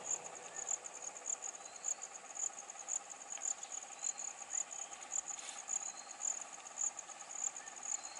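Insects chirping in an even, high-pitched pulsing rhythm of several pulses a second.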